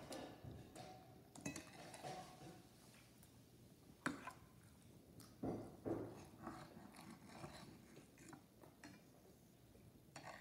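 Faint eating sounds: a metal fork clinking against a dish a few times, with the sharpest click about four seconds in, and quiet chewing.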